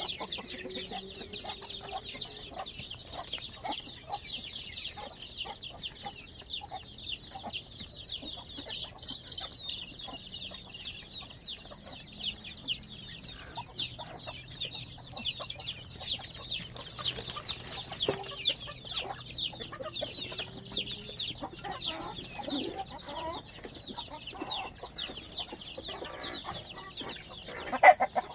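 A flock of chicks peeping constantly in many short, high, falling chirps, with hens clucking now and then underneath. A sharp knock near the end is the loudest sound.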